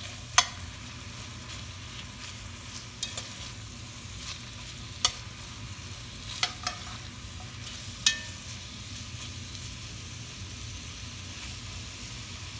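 Sliced onions, ginger and garlic sizzling steadily in coconut oil while being stirred in an enamelled cast-iron pot, the metal spoon clinking sharply against the pot about seven times.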